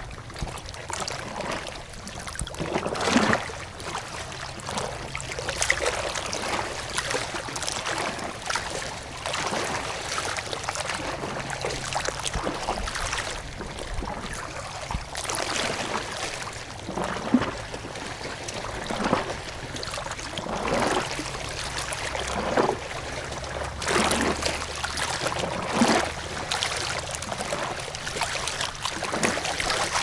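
Running water splashing and gurgling: a steady rush with irregular splashes every second or so.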